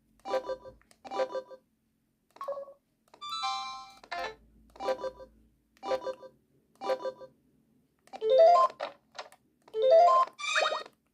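LG KG225 mobile phone sounding a series of short electronic tones through its small speaker: about eight brief pitched blips roughly a second apart, then two longer chiming phrases near the end.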